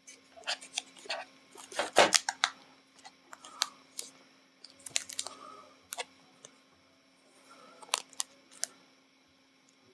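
Handling noise as a Nook Tablet is lifted out of its cardboard box tray: a scattered run of sharp clicks and taps, the loudest cluster about two seconds in.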